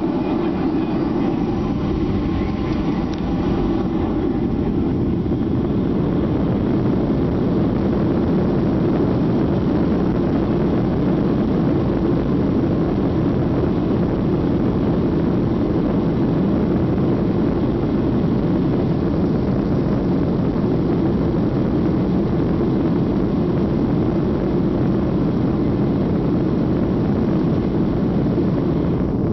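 Boeing 737-800's CFM56 jet engines running, a loud, steady rushing noise with its weight low in pitch; a few faint tones at the start die away within the first few seconds.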